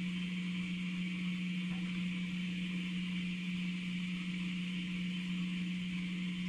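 A steady low hum with a constant hiss above it, unchanging throughout.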